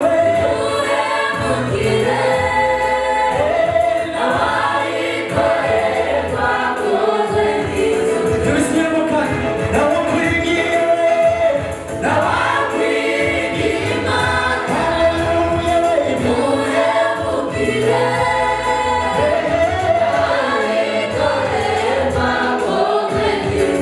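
A church choir singing a gospel worship song, with low bass notes underneath.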